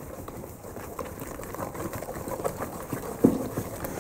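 Wire balloon whisk beating drop scone batter in a ceramic mixing bowl: a quick, uneven run of wet slaps and taps of the wires against the bowl, with one louder knock a little after three seconds. The milk is being beaten into the batter to thin it to a dropping consistency.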